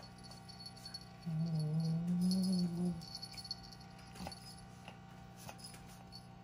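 A cat growling: one low, drawn-out 'uuu-uun' growl of under two seconds, starting about a second in, rising a little in pitch and then falling. It is a possessive growl over the teaser toy it holds in its mouth.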